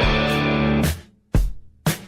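Background rock music with guitar and drums that breaks off about a second in, followed by two short drum hits.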